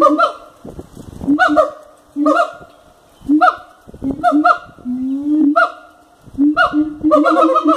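Siamangs calling: short, loud calls about once a second, with one longer held note about five seconds in and a quick run of short calls near the end.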